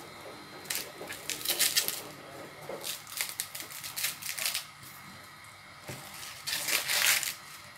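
Husks being torn off an ear of fresh sweet corn: crisp, crackly tearing rips in three bursts, about a second in, in the middle and near the end.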